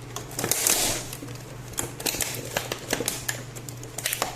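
Scissors cutting at a box's sealed plastic wrapping: a burst of crinkling in the first second, then a run of irregular small snips and clicks.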